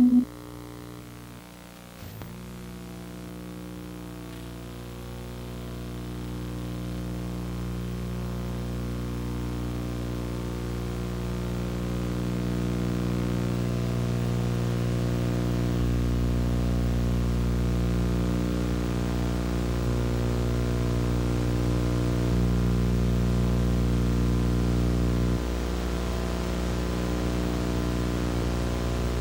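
Synthesizer drone: a cluster of steady sustained tones over a faint hiss, slowly growing louder. A soft click comes about two seconds in, a deeper hum joins about halfway through, and the sound eases slightly near the end.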